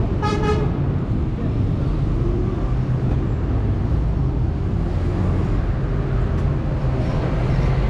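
Busy city street traffic: a steady rumble of vehicle engines and tyres, with one short, high tone about half a second in.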